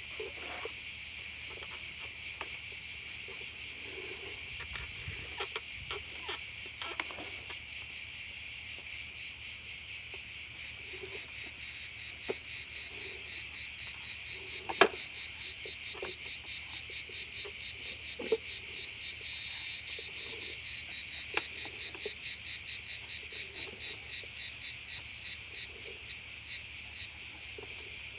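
Crickets chirping in a steady, rapid pulsing trill. Over it come a few sharp clicks and light knocks, the loudest about halfway through.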